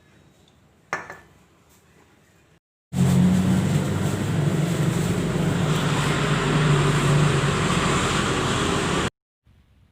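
A single knock about a second in. Then an electric motor, the twin-tub washing machine's motor, runs steadily with a low hum for about six seconds, starting and stopping abruptly.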